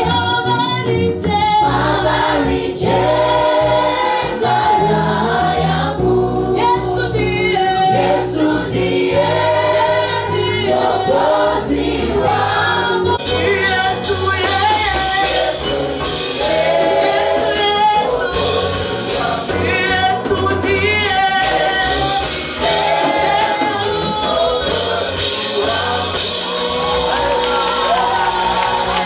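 Church choir singing a Swahili gospel hymn with band accompaniment; high percussion joins about halfway through.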